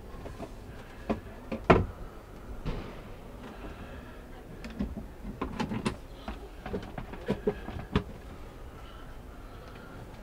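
Camper van cabinet and washroom doors being swung open and shut, making a series of sharp clicks and knocks. The loudest comes just under two seconds in, and there is another cluster from about five to eight seconds in.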